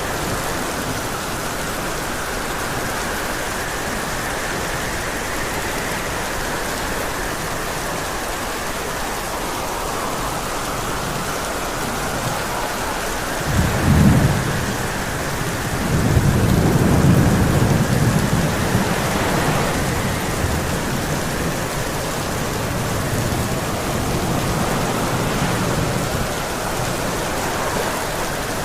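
Steady rain with thunder: a short crack of thunder about halfway through, then a longer rolling rumble a couple of seconds later.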